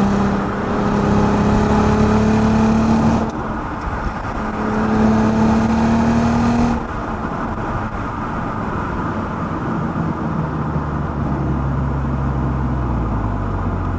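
Volkswagen Passat 3.2 FSI VR6 exhaust, running with the front resonators deleted through an R36 cat-back, pulling under acceleration. The note rises in pitch, breaks off briefly about three seconds in at a gearchange, and rises again. It drops away suddenly about seven seconds in, then settles to a lower steady drone whose pitch slowly falls.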